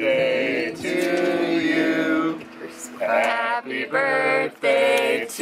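Men's and women's voices singing a melody in short phrases, with a brief pause about halfway through.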